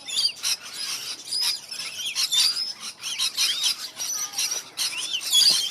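Many small aviary birds, such as parrots and finches, chirping and calling at once in a dense chorus of short, high chirps and quick sliding whistles.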